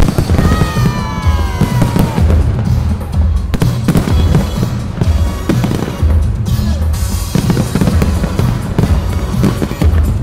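A fireworks display bursting in rapid bangs and crackles over loud music with a heavy pulsing bass beat. Several falling whistles sound about half a second in.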